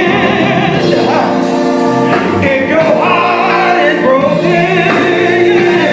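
Male gospel vocal group singing a slow song in harmony, the voices holding long notes.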